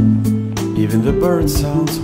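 Background music: a song with a steady drum beat and bass, and a singing voice wavering through a line in the second half.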